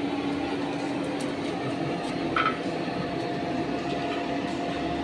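Blower forcing air into a charcoal forge fire: a steady whooshing hum with a constant tone. A light metallic clink about halfway through.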